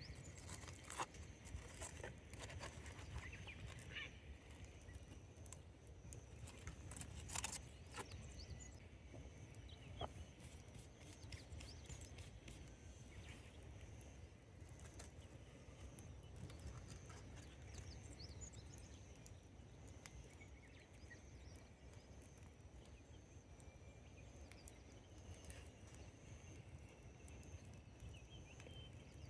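Wood campfire crackling faintly, with scattered sharp pops, the loudest about seven seconds in, over a low steady rumble and a thin, steady high-pitched tone.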